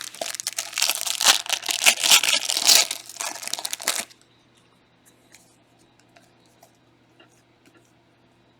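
A trading card pack wrapper being torn open and crinkled, a dense crackling tear for about four seconds. It is followed by faint clicks and rustles of the cards being handled.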